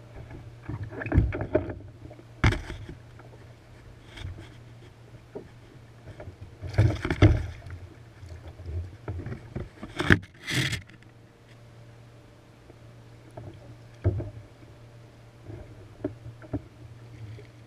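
A shortbill spearfish being gaffed beside a plastic kayak and hauled aboard: loud, irregular splashes and knocks, the biggest about a second in, around seven seconds and around ten seconds, over a steady low hum.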